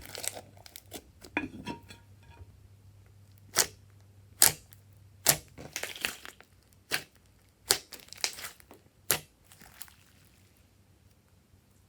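Clay slime being squeezed and kneaded by hand: fine crackling at first, then a series of sharp, loud pops about a second apart.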